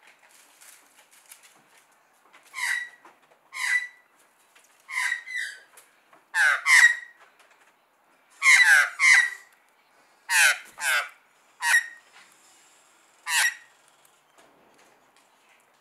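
Australian magpie giving a series of about a dozen short, loud calls, several in quick pairs, each falling in pitch.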